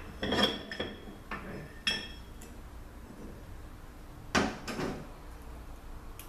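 Steel parts clinking and knocking as the output shaft of an RE7R01A 7-speed automatic transmission is slid out of the case and laid down with its park gear on a metal workbench: a few ringing clinks in the first two seconds, then two heavier knocks about four and a half seconds in.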